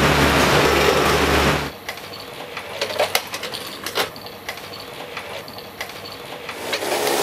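A motor vehicle's engine hum in street traffic for under two seconds, then a quieter stretch of irregular clicks and rattles from a bicycle being ridden.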